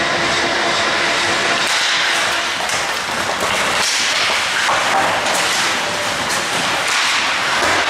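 Ice hockey play: skates scraping the ice, with sticks clacking and the puck and players knocking against the boards and glass in sharp, irregular hits.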